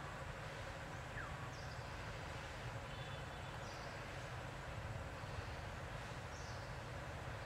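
Outdoor forest ambience: a steady low rumble with a few short, high chirps every couple of seconds, typical of small birds.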